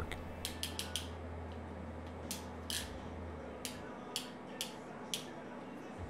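Ratcheting hand wire crimper clicking quietly as it is handled: a quick run of about four clicks in the first second, then single clicks every half second to a second.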